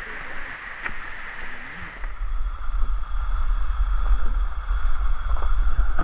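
Waterfall rushing steadily. About two seconds in, a heavy low rumble of buffeting on the microphone sets in and stays.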